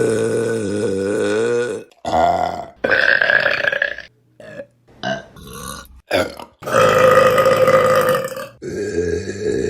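Women burping loudly, one after another, with abrupt cuts between clips. Several of the burps are long and drawn out with a wavering pitch, and a few short ones come in the middle.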